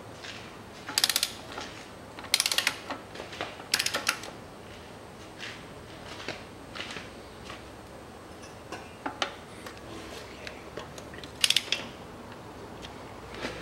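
Ratchet of a torque wrench clicking in short rapid bursts as the transmission pan bolts are tightened to 9 N·m, three bursts in the first four seconds and one more near the end, with fainter clicks between.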